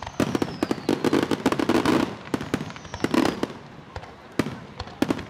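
Aerial fireworks shells bursting in quick succession: a dense run of bangs and crackling pops, with a faint whistle falling in pitch twice.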